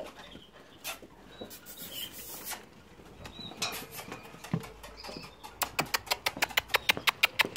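Six-week-old puppies' claws clicking and pattering on a hard concrete floor as they scamper. There are scattered clicks and scuffles at first, then a quick run of clicks, about six or seven a second, over the last two seconds.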